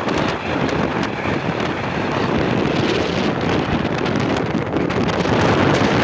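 Wind rushing over the microphone of a moving motorcycle, a loud, even roar that covers any engine or road sound.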